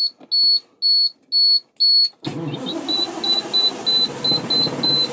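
A high dashboard warning beep repeats about twice a second. About two seconds in, the starter cranks the International 9800's big diesel engine in a steady rough churn, and the beeping goes on faster and slightly lower over it. The engine cranks without starting.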